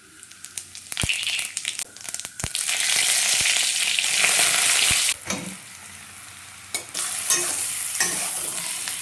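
Mashed-potato filling sizzling in a hot pan while it is stirred, with a few sharp taps of the spoon against the pan. The sizzle is loudest a few seconds in, drops off briefly, then picks up again.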